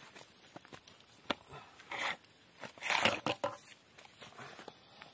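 Hot cooking water being poured out of a metal pot of boiled mussels onto the ground, splashing in two bursts about two and three seconds in, the second the louder, with a few sharp clicks of the shells knocking in the pot.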